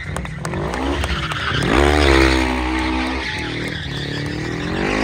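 Quad bike (ATV) engine revving hard, its pitch climbing steeply about a second and a half in and again near the end, with tyres scrubbing and skidding on the asphalt as it drifts in donuts.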